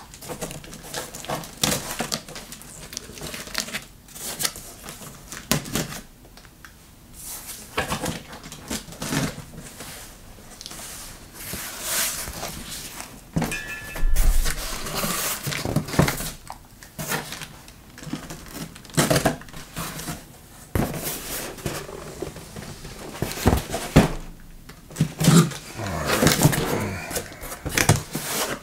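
Cardboard shipping box being opened and handled: flaps pulled open and folded back, the box scraped and knocked against the table in an irregular run of rustles, scrapes and clicks, with a heavier thump about halfway through and busier handling near the end as the box is lifted away.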